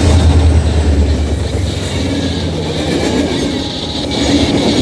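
Rocky Mountaineer passenger train passing at close range: a diesel locomotive's low engine drone is loudest at the start and fades after about a second and a half, then the passenger cars roll by with steady wheel-on-rail noise.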